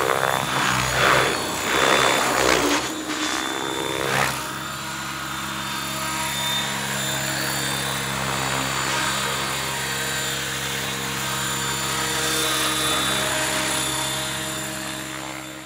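Electric RC helicopter (Mikado Logo 600 with a Pyro 650 motor) in flight, its rotor blades swelling and fading in loud whooshes for the first four seconds. After that, on the ground, its rotor and motor keep running with a steady whine that fades out at the very end.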